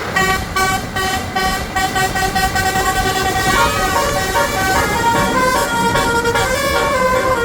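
Bus basuri telolet musical horn playing a tune: loud multi-tone horn notes stepping from pitch to pitch, short quick notes at first, then longer held notes.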